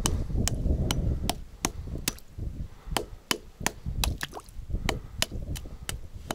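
The butt of a hatchet chipping ice: quick, sharp knocks at about three a second, breaking out a frozen-over ice-fishing hole around a tip-up's line.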